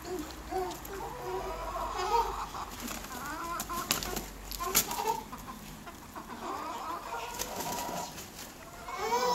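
Chickens clucking: a run of short, repeated low calls, with a few sharp clicks in between.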